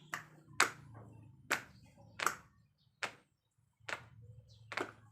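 A series of about six sharp taps or claps, less than a second apart, with a brief pause about three seconds in.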